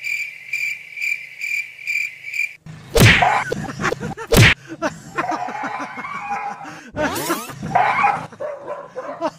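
An even, cricket-like chirping about twice a second stops suddenly and is followed by two loud thumps as a large cardboard box is thrown down beside a sleeping dog; a jumble of short squeaks and rustles follows as the dog bolts.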